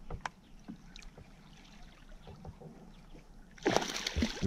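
A hooked bass thrashing and splashing at the water's surface beside the boat as it is reeled in, a sudden loud splash about three and a half seconds in after a stretch of faint ticking.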